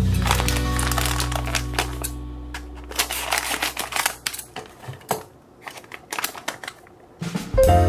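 A brown paper pouch crinkling and rustling in the hands as it is cut open with scissors, in dense crackly clicks. Background music fades out at the start and comes back near the end.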